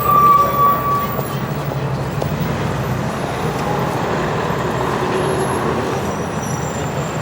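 Busy city street ambience: steady traffic with engines running, faint voices of passers-by, and a brief high tone about a second long right at the start.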